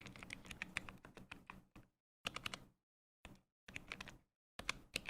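Rapid keystrokes on a Work Louder Creator Board mechanical keyboard during a typing test: quick runs of clicky key presses with short breaks between them.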